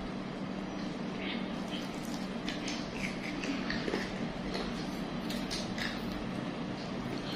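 Forks and spoons clicking and scraping on ceramic plates while spicy fried noodles are eaten, scattered short clicks over a steady low hum.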